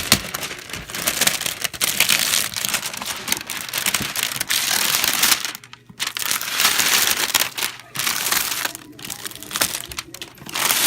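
Plastic packaging wrapper being torn off and crinkled, in long stretches of loud rustling broken by short pauses around the middle and near the end.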